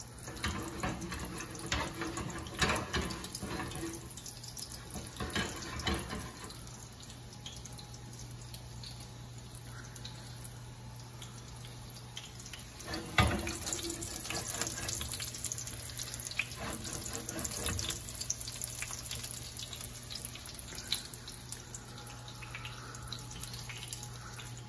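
Breaded chicken cutlets sizzling and crackling as they shallow-fry in hot oil in a stainless steel skillet, the crackle busier for the first few seconds. A single sharp knock sounds about halfway through.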